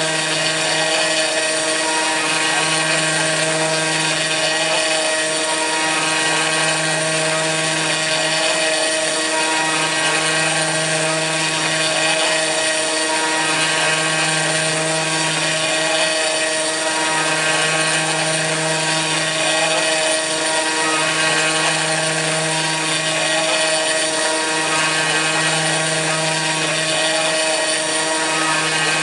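Kress FME-1050 router spindle on a hobby CNC machine running steadily while milling aluminium, a constant high motor whine. Under it a lower hum switches on and off about every three to four seconds.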